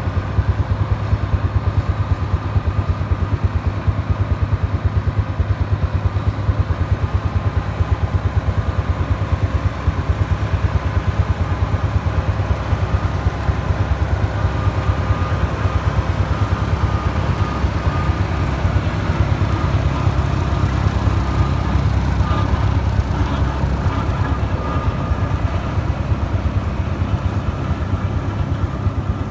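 John Deere row-crop tractor's diesel engine running steadily at working speed as it pulls and drives a John Deere CX-15 batwing rotary cutter through weeds, its spinning blades adding a rushing noise over the engine.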